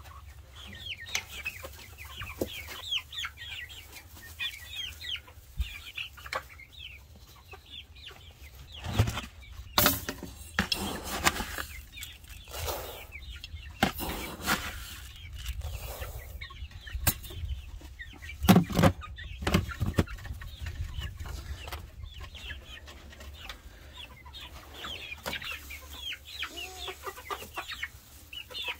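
A flock of young chickens clucking and peeping. In the middle come several loud, rustling, rattling bursts as pellet feed is scooped from a bucket with a jar and poured into a plastic feed pan.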